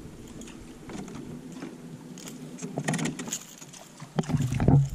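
Electric boat motor humming steadily as the aluminium boat turns, with light metallic clinks and rattles of gear in the hull; louder knocks and handling noise come in near the end.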